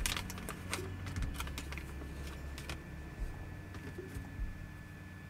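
Light clicks and taps of small resin scale-model parts, the kit's wheels, being handled. The clicks come thick in the first few seconds, then only now and then.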